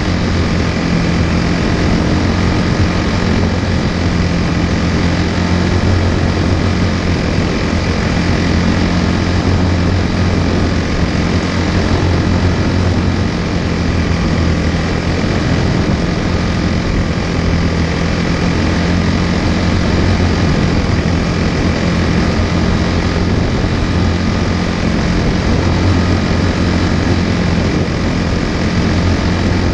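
Quarter midget race car's small single-cylinder Briggs & Stratton Animal engine running steadily at a fairly even pitch, heard from on board the car.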